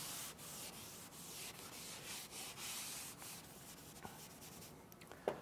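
Felt chalkboard eraser rubbing across a blackboard in repeated wiping strokes, a faint scratchy hiss that stops about four and a half seconds in.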